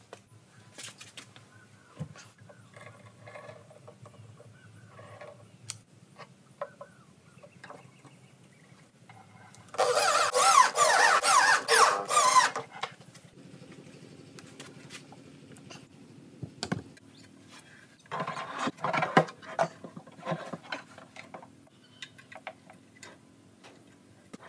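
Cordless drill driver whirring in bursts as it drives screws into a subwoofer cabinet: a long burst of about three seconds a little before halfway, and a shorter one about three-quarters through. In between there are small clicks and knocks of parts being handled.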